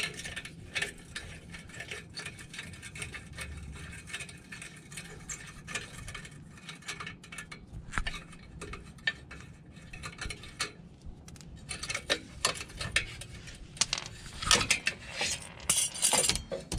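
Irregular metallic clinks, taps and scrapes of exhaust pipe sections and their bolts and clamps being handled and fitted, growing busier over the last few seconds.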